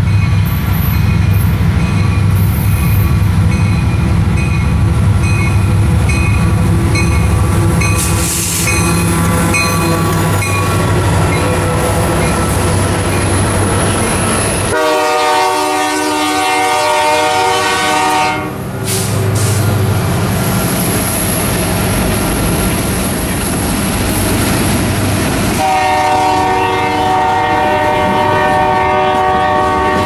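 Diesel freight train locomotives running past with a steady low rumble while the air horn blows. A fainter blast sounds at first, then a loud blast about halfway that stops abruptly, and another long blast starts near the end as the covered hoppers roll by clacking over the rail joints.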